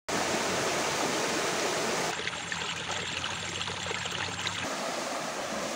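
Flowing stream water, a steady rush of noise. Its sound changes from about two to four and a half seconds in, with faint high peeps over it.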